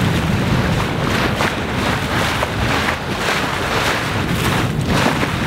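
Wind buffeting the microphone over the rush of water along the hull of a Hanse 455 sailing yacht under way under sail: a steady loud noise that swells in repeated surges.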